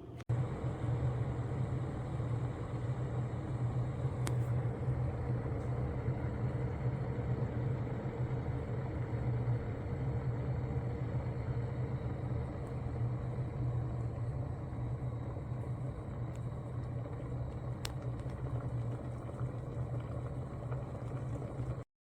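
Proctor Silex 1-litre electric kettle heating water, a steady low rumble from the water over the heating element before it reaches the boil, with two faint ticks. The sound cuts off abruptly near the end.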